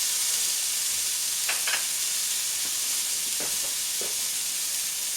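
Carrots sautéing in olive oil in a hot pan: a steady sizzle.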